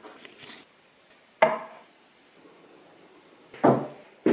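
Three sharp knocks with short decays, about a second and a half in, near the end and at the very end, from a vacuum cleaner being handled.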